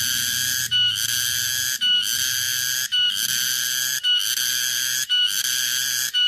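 Tonggeret (garengpung) cicada singing: a continuous high buzz that breaks off briefly about once a second, each break closing with a short higher note.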